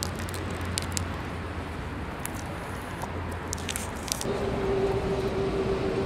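A butter block unwrapped and cut with a knife on a wooden board: a few sharp crackles and clicks over a steady outdoor hum. About four seconds in, a steady droning tone sets in and holds.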